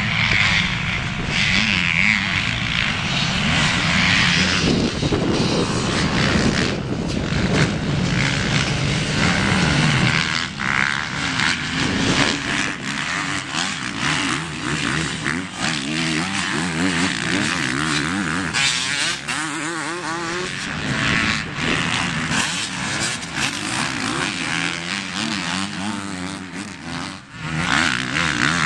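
Several motocross dirt bikes racing, their engines revving up and down as they ride the track, with the pitch rising and falling continuously.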